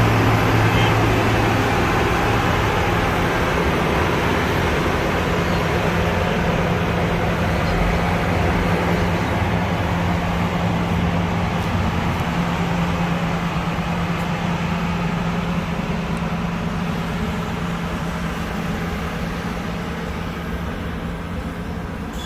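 Heavy diesel engine of a road-construction machine running steadily, a low hum that slowly grows quieter.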